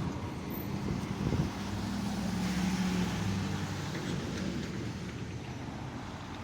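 Road traffic passing: a vehicle's engine hum and tyre noise swell toward the middle and fade again, with some wind on the microphone.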